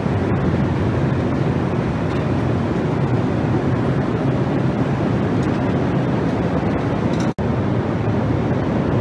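Airbus A380 cabin noise in cruise: a steady, loud rush of airflow and engine noise, with an instant dropout about seven seconds in.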